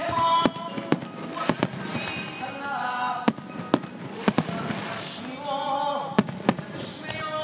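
Aerial firework shells bursting in quick succession, about a dozen sharp booms and cracks, over a song playing in the background.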